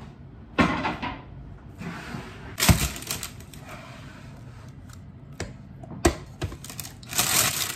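Parchment paper rustling, with a few sharp knocks, as a freshly baked loaf is lifted out of a Dutch oven in its parchment and set on a wooden cutting board. The loudest knock comes about a third of the way in.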